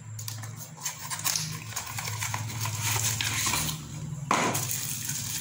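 Cardboard box and plastic wrapping crinkling and rustling as a selfie-stick tripod is pulled out of its packaging, with a sudden louder crackle about four seconds in. A steady low hum runs underneath.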